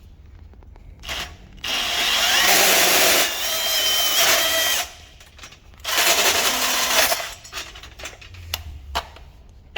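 Milwaukee M18 Fuel cordless brushless band saw zipping through copper tube in two runs: one of about three seconds starting a second and a half in, then a shorter one of about a second. Each run carries a steady high whine, and light clicks and knocks of handling fall between them.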